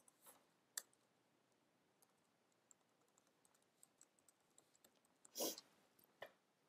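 Faint computer keyboard typing: sparse, light key clicks, with a louder, slightly longer key press about five and a half seconds in and one more click shortly after.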